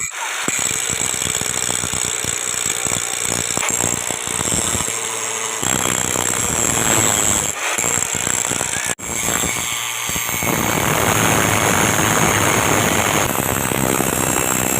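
Power tools working steel: a rapid mechanical hammering and grinding din with a high squeal, changing abruptly several times as the shots cut.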